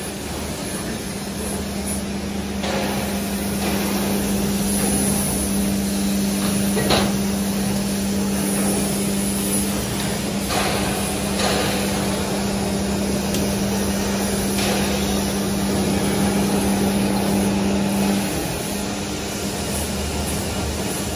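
Hydraulic plate rolling machine running as it rolls a steel sheet: a steady hum from its motor and hydraulic pump starts about a second in and stops near the end, with a few scattered knocks over constant workshop noise.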